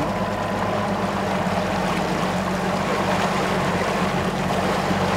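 Motorboat's engine running steadily under way: an even low hum with a rush of wind and water over it.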